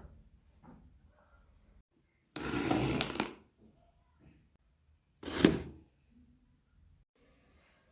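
Product packaging handled during unboxing: a rustling scrape lasting about a second, then a shorter, sharper scrape, with light handling noises between.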